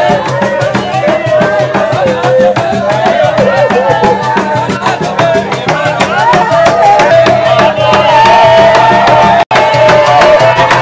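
A group of voices singing a slow hymn-like song over a steady drum beat, with a split-second dropout about nine and a half seconds in.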